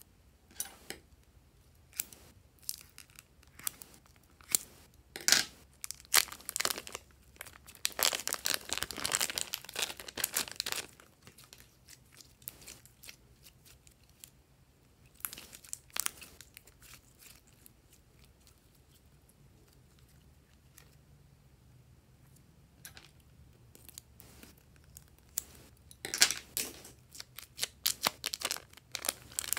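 Plastic piping bags crinkling and glossy slime crackling as hands squeeze and pull the slime out of the bags. Dense bursts of crackles come about a fifth of the way in and again near the end, with only occasional clicks in a quieter stretch between.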